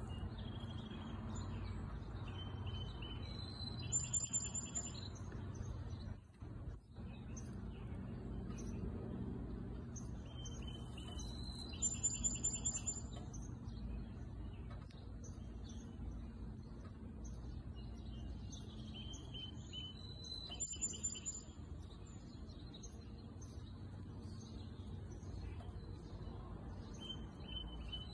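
A songbird singing, the same short phrase of quick high notes repeated about every eight seconds, with a few shorter chirps between, over a steady low background hum.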